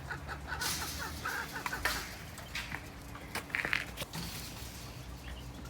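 Poultry in a pen: a run of soft, rapid bird calls in the first second or so, then rustling, scraping and a few sharp knocks from things being handled and moved, over a faint steady hum.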